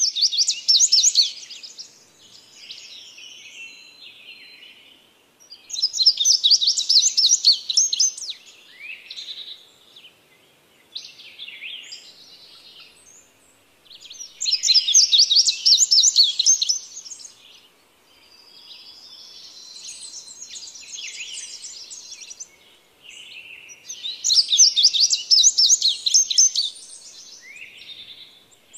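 Blue-gray tanager (azulejo común) singing: four phrases of rapid, squeaky high notes, each two to three seconds long and about nine seconds apart, with softer twittering chirps between them.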